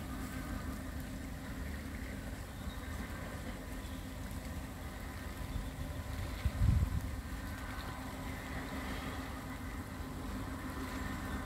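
The engines of the plough dredger Fastnet Sound make a steady low drone as the vessel tows its plough through the channel. A brief low buffet of wind on the microphone comes about halfway through.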